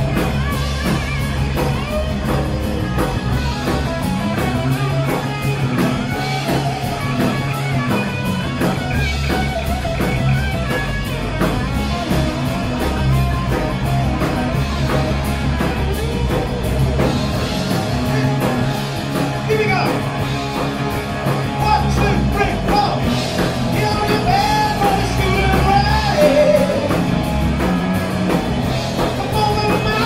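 Rock band playing live in a rehearsal room: electric guitars, bass guitar and drum kit, with a man singing over them.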